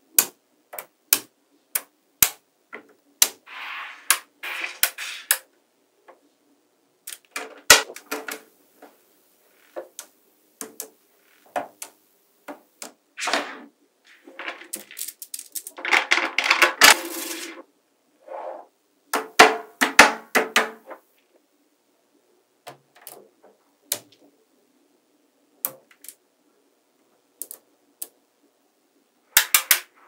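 Small magnetic balls snapping together in sharp, irregular clicks as they are placed. There are several stretches of dense rattling as a cluster of balls is rolled and shaped between the fingers.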